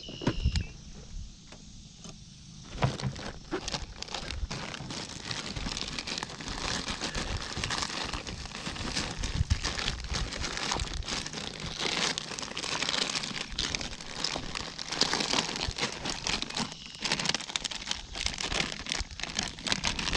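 Plastic soft-bait packages crinkling and rustling as hands rummage through a soft tackle bag, from about three seconds in.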